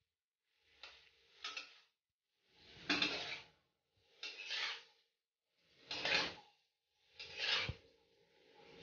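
A spatula scraping and stirring pasta in sauce around a steel kadai, in about six separate strokes roughly a second and a half apart.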